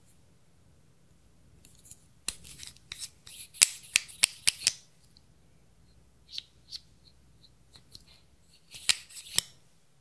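A makeup tube and its wand applicator clicking and tapping against a glass dish. There is a burst of sharp clicks a couple of seconds in, a few light ticks in the middle, and a short burst of clicks near the end.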